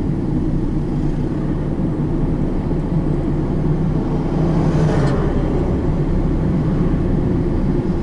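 Cargo van engine and road noise heard from inside the cab while driving, a steady low drone. A brief swell of noise rises and fades about five seconds in.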